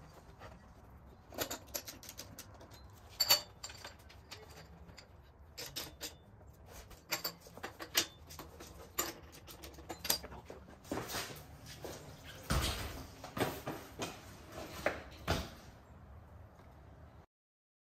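Irregular metallic clicks and knocks from hand tools working on a BMX bike's rear wheel, with a socket wrench on the axle nut.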